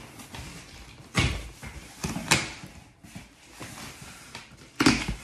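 Cardboard shipping box being handled and opened by hand: a few sharp knocks of the box and its flaps, with rustling between.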